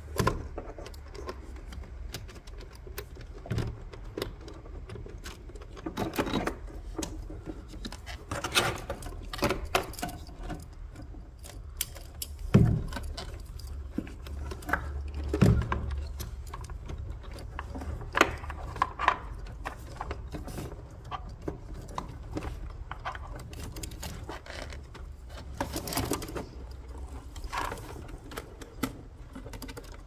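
Wiring harness and plastic connectors of a Mercedes W204 front SAM fuse/relay module being handled and routed: irregular clicks, rustles and plastic knocks, with two heavier thuds a few seconds apart near the middle, over a low steady hum.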